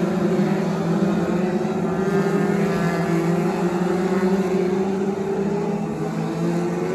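A pack of BriSCA F2 stock cars racing, several engines running at once in a steady, loud drone.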